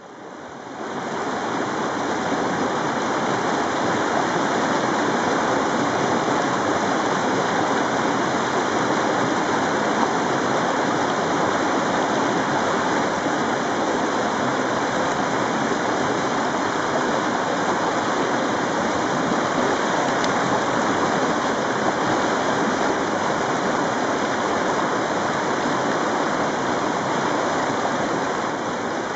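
Rapids of a fast river rushing steadily, a constant roar of water that fades in over about the first second.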